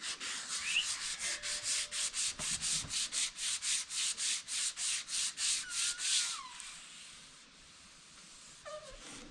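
Sandpaper rubbed back and forth over a vehicle's body panel in fast even strokes, about four or five a second, as the body is sanded ready for paint; the sanding stops about six and a half seconds in.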